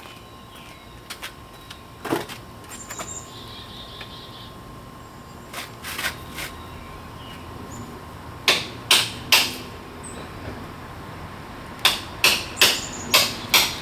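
Sharp hand-tool strikes chipping old concrete: a few scattered blows, then three in quick succession about eight and a half seconds in, and a run of five near the end.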